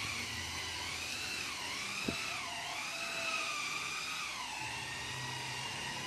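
A power tool in the workshop whining steadily, its pitch wavering slowly up and down as it is worked, with a single sharp knock about two seconds in.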